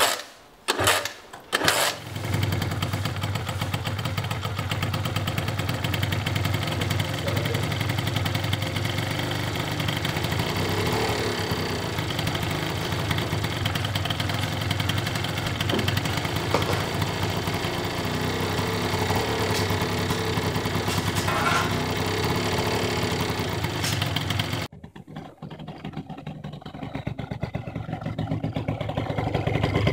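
Two-stroke scooter engine of a TGB Bullet 50 RR bored up with a DR Evo 70cc cylinder and Leovince ZX-R exhaust, on its first run: a few short sputters as it is started, then it catches about two seconds in and runs steadily, its pitch shifting a little as the throttle is worked. Near the end the sound drops suddenly to a quieter, uneven idle.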